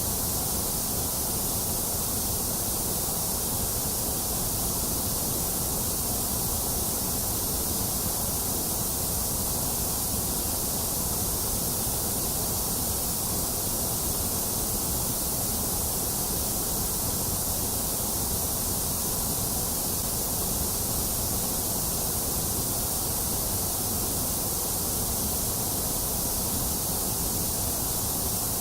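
Steady white noise: an even, unchanging hiss, brightest in the highs, played as a sleep and soothing sound.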